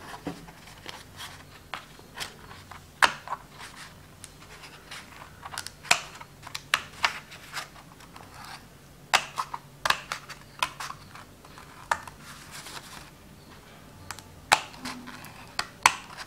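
Scissors snipping through folded white chart paper in many short, irregular cuts, working around a small curved eye hole.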